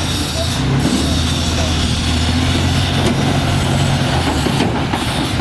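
A motor vehicle's engine running steadily with a low hum, under the general noise of travel.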